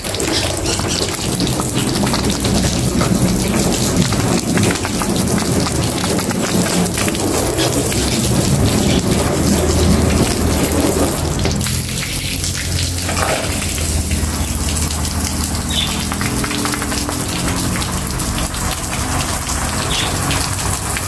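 Water from a hose splashing steadily onto a car's painted hood and spattering off it. The sound changes about eleven and a half seconds in, as the stream moves.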